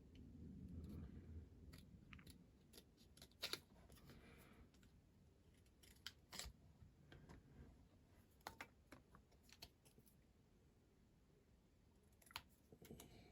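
Near silence broken by a few faint, sharp clicks and taps, about five of them, from small tools and parts being handled on a workbench.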